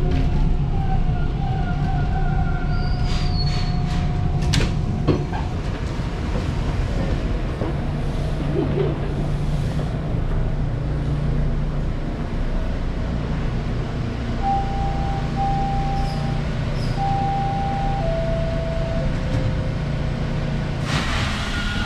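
Subway train running: a steady low rumble with the whining tones of its traction motors, and a few sharp clicks about three to five seconds in. Near the end the whine glides in pitch as the train changes speed.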